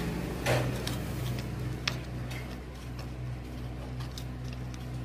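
Scattered light metallic clicks and taps from gas stove parts and screws being fitted by hand, over a steady low hum. The sharpest click comes about two seconds in.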